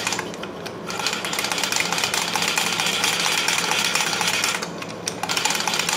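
Hand-cranked valve lapping tool turning an 11 HP Briggs & Stratton engine valve against its seat with lapping compound, a steady gritty grinding with a fast rhythmic rasp. It breaks off briefly twice, about half a second in and near five seconds in.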